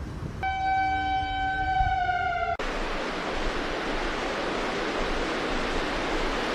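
A siren sounds a single held high tone that sags slightly in pitch for about two seconds, then cuts off abruptly. A steady rushing noise takes over for the rest of the time.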